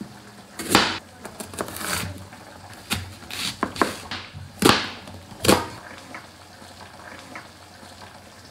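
Kitchen knife slicing carrot, onion and green onion on a cutting board: a series of sharp, irregularly spaced chops of the blade hitting the board, fewer and fainter in the last couple of seconds.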